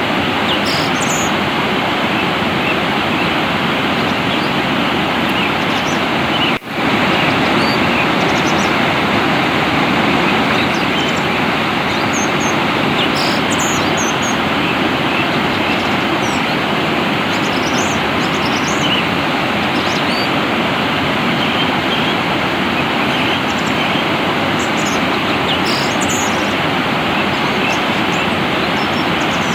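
Steady rush of flowing water with small birds chirping sporadically above it. The sound drops out for an instant about six and a half seconds in.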